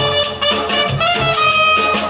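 Live band music: saxophones and trumpet playing a Latin American dance tune over drum kit and conga. A high horn note is held through the second half.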